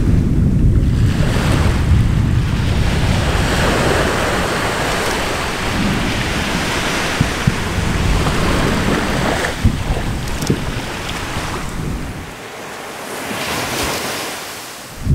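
Anak Krakatau explosive eruption: a continuous rushing rumble as the ash column surges after a blast, with a few sharp cracks in the middle. It falls away about twelve seconds in, a hiss swells, and a new loud blast starts suddenly at the very end.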